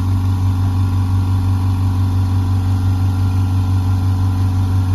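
Pneumatic nick grinder setup running steadily: a low, even mechanical hum with a slight regular pulse.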